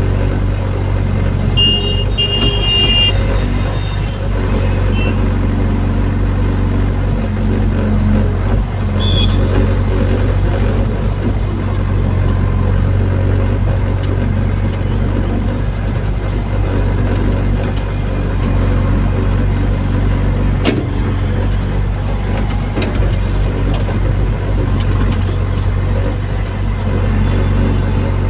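Hydraulic excavator's diesel engine running steadily under load, heard from inside the operator's cab as the boom and bucket work. A brief high squeal about two seconds in and a sharp click later on.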